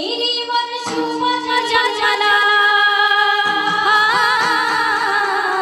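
A woman singing long held notes, wavering and ornamented near the end, opening a Marathi song.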